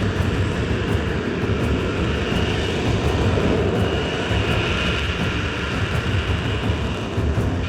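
F-35B Lightning II fighter jet's Pratt & Whitney F135 engine running, a steady loud rumble with a high whine that comes and goes.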